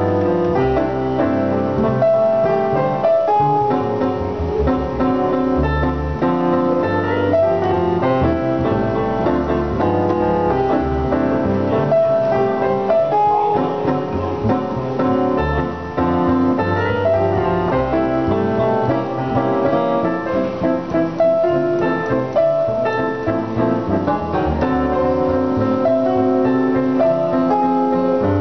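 Jazz piano and upright double bass duo playing: a digital piano playing chords and melody over plucked double bass.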